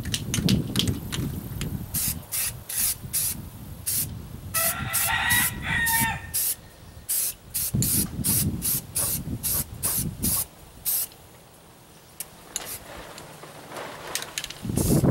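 Aerosol spray paint can sprayed in many short bursts, each a sharp hiss. A rooster crows once about five seconds in.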